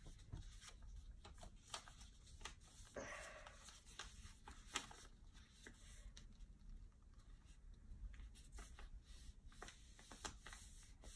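Faint rustling and crinkling of a sheet of letter-size paper being folded into a paper airplane wing and creased flat by hand, with scattered short crackles as fingers press along the fold.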